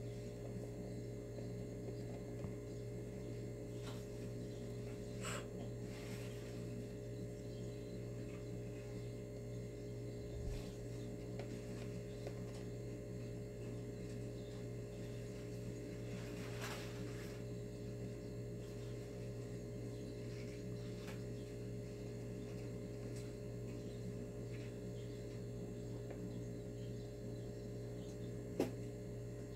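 Steady electrical hum with a few faint, isolated clicks.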